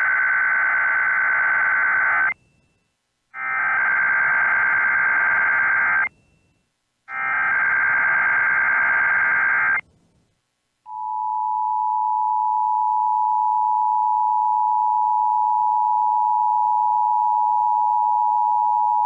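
Emergency Alert System SAME digital header: three screeching data bursts about a second apart. About eleven seconds in, the EAS two-tone attention signal (853 and 960 Hz) starts and holds steady. This marks the start of an EAS monthly test.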